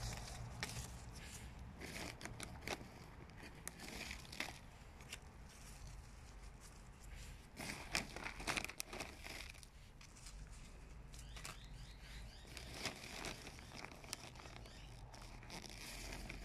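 Potting soil being handled and pressed down by a hand in a thin plastic glove: irregular rustling, crinkling and small crackles, busiest about halfway through.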